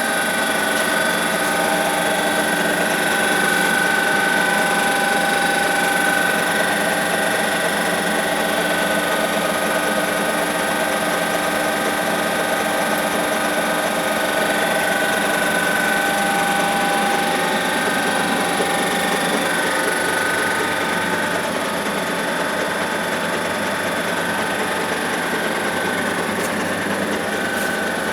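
Estarta 301 centerless grinder running steadily: a constant machine hum with several steady whining tones over it.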